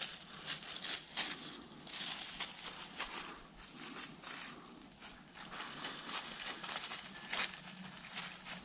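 Irregular rustling and crunching, like something moving through dry leaves and brush, with no steady rhythm.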